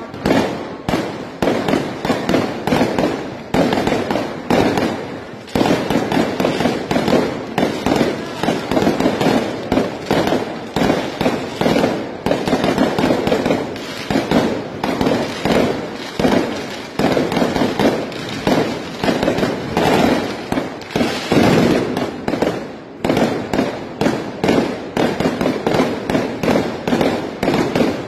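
Fireworks going off close by in a rapid, unbroken barrage: dozens of bangs and crackles a second, dipping briefly about five seconds in and again near the end.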